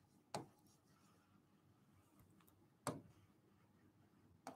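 Near silence broken by three short, faint taps of a stylus pen on an interactive whiteboard screen while writing.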